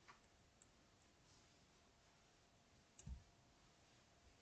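Near silence: room tone with a few faint clicks, and a brief soft low knock about three seconds in.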